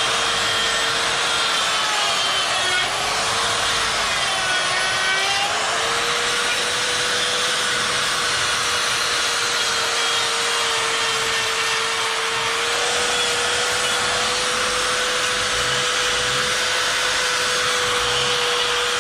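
Electric die grinder running with a carving bit grinding into wood, a steady whine over a rasping hiss. Its pitch sags twice in the first six seconds as the bit bites in, then holds steady.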